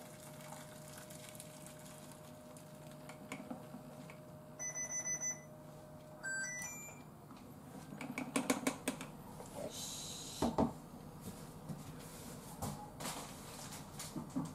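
Electronic beeps from an induction cooktop's control panel: a quick run of short beeps about five seconds in, then a few stepped tones a second later. After that come a few clicks and knocks from handling the kettle and pan.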